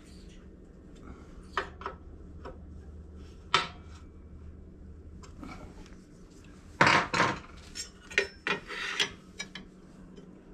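Metal clinks, clanks and light scrapes as hand tools and a steel square are handled against a belt grinder's steel platen and work rest: scattered single clinks, with a louder cluster of clanks about seven seconds in and several more just after.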